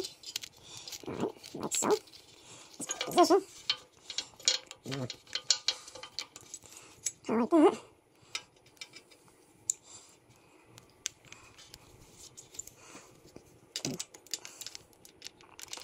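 Small metal hardware clinking and tapping as a bolt, spacer and clamp band are handled and fitted by hand, with a few short low mutters in the first half. It goes quieter for several seconds in the second half, with only faint ticks.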